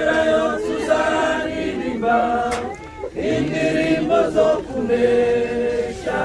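A crowd of mourners singing a Kinyarwanda hymn together, voices holding long notes, with a short break about halfway through.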